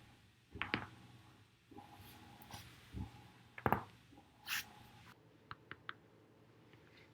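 Spinal joints popping as a back is rolled over a foam roller: a quick cluster of cracks about half a second in and a louder double crack near the middle, with rustling and small ticks of the body shifting on the roller between.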